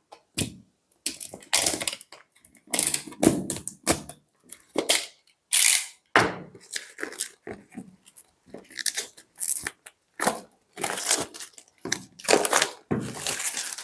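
Plastic shrink wrap on a phone box being slit with a utility knife and torn off by hand: a run of irregular crinkling and tearing noises.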